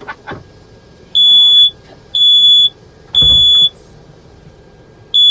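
Smoke alarm sounding, set off by the cooking: three loud, high, steady beeps of about half a second each, a second apart, then a pause and the next beep starting near the end. A dull low bump comes with the third beep.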